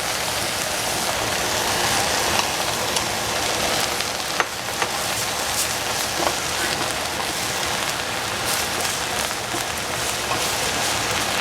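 Food sizzling in hot oil in a frying pan: a steady crackling hiss with a few sharp clicks.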